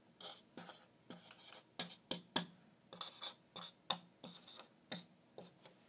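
Black marker pen writing on a surfboard: a string of short, faint scratching strokes as letters are drawn.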